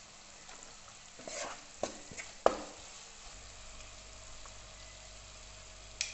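A wooden spatula scrapes and knocks against a pan while chopped onion, carrot and capsicum sizzle faintly in oil. There is a cluster of scrapes and knocks in the first half, the loudest a sharp knock about two and a half seconds in, and another knock near the end. A low hum comes in about halfway through.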